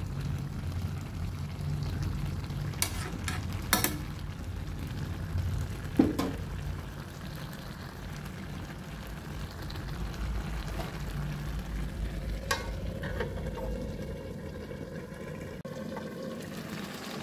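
Chicken and ash gourd curry bubbling in a metal kadai, over a steady low rumble, with a few sharp clicks. Near the end, a cloth rubs across the pan's metal lid.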